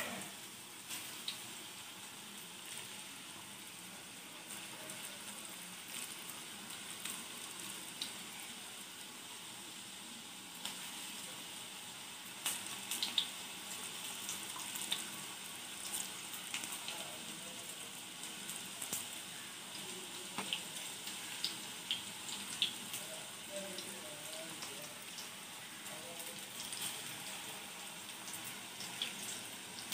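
Cabbage and onion bonda in gram-flour batter deep-frying in hot oil: a steady sizzle with scattered pops and crackles.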